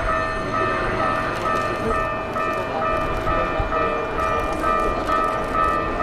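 Electronic railway crossing warning bell pulsing evenly, about two to three strokes a second, over the steady running noise of a Keikyu train.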